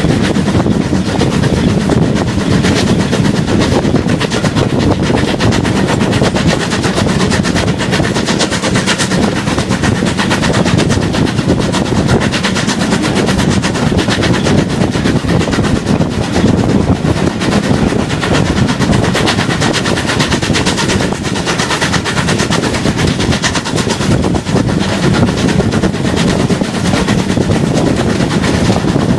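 Steam-hauled train running at speed, heard from an open carriage window: a loud, continuous rattle of rapid beats over a rushing noise, holding steady throughout.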